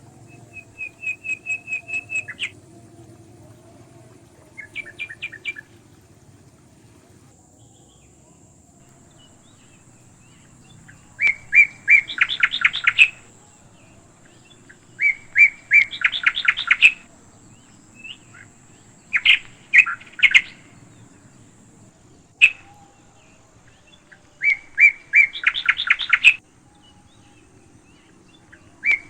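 A bird calling in repeated phrases of rapid, evenly spaced notes, each phrase lasting one to two seconds, about seven times with pauses of a few seconds between.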